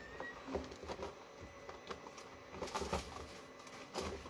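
Scattered light clicks and soft knocks of a plastic filament spool and plastic container being handled while the filament end is fed into a guide tube.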